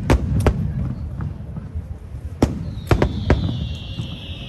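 Aerial fireworks bursting in a string of sharp bangs over a low rumble. About two-thirds of the way in a high whistle starts and slowly falls in pitch.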